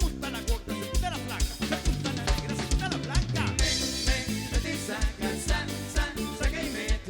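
Cumbia band playing live, an instrumental passage with the drum kit keeping a steady beat under bass and melody instruments. A cymbal crash comes about halfway through.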